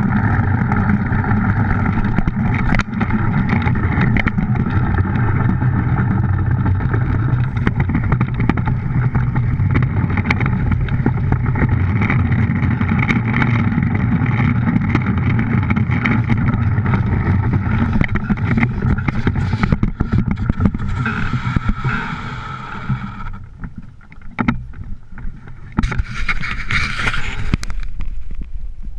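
DN iceboat's steel runners rumbling and humming over the ice at speed, with wind. About three-quarters of the way in the noise falls away sharply, followed by a few knocks and a brief louder rush near the end.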